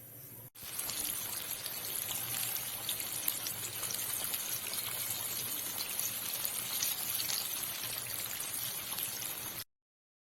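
Chicken pieces deep-frying in hot oil: a steady sizzle full of small crackles and pops. It cuts off suddenly near the end.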